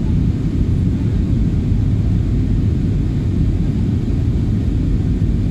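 Steady low rumble of an Airbus A320 heard inside the passenger cabin during its descent to land: engine and airflow noise through the fuselage, even throughout.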